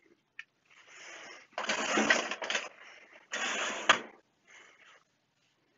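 Objects being moved at a workbench: two rattling, scraping slides of about a second each, the second ending in a sharp knock, with faint rustling around them.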